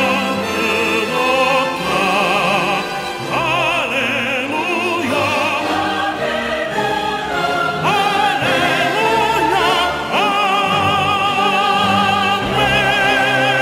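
Operatic classical music: a voice sings long held notes with wide vibrato over an instrumental accompaniment.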